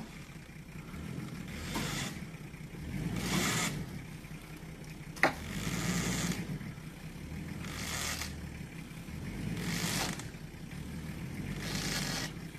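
Nissan Patrol Y60's engine running, swelling and easing every two seconds or so, with a single sharp click about five seconds in.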